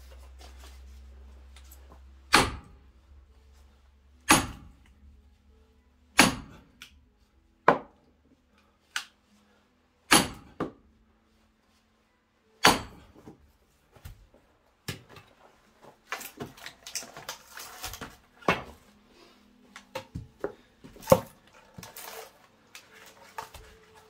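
Splitting axe striking larch rounds on a chopping block: a series of sharp cracking blows roughly two seconds apart. In the last third come a busier run of lighter knocks and clatter of split pieces of wood, with one loud hit.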